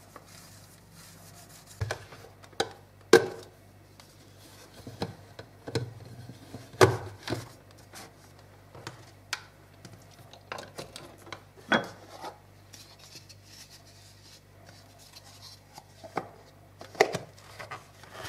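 Irregular knocks and clicks of kitchen equipment being handled: a metal sieve tapping over a plastic blender jar, then the jar being fitted onto its Bialetti blender base and the cord moved about. The loudest knocks come about three, seven, twelve and seventeen seconds in.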